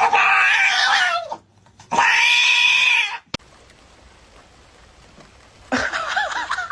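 Domestic cat meowing: two long drawn-out meows, then shorter calls that rise and fall in pitch near the end.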